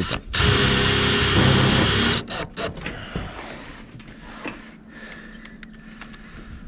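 DeWalt cordless drill-driver running for about two seconds as it drives a screw through a metal roof ridge cap into the metal roof-tile sheeting, then stopping suddenly. A few faint handling clicks follow.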